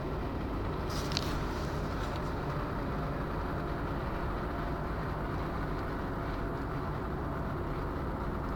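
Steady low rumble of a moving vehicle heard from inside its cabin, with a brief click or rattle about a second in.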